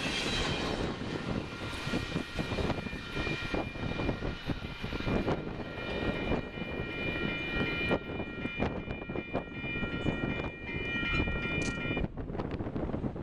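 Strong wind buffeting the microphone over the fading rumble of a Union Pacific intermodal stack train's wheels on the rails as its last cars pass and it moves away. From about two seconds in, a steady high-pitched ringing sounds, then stops abruptly near the end.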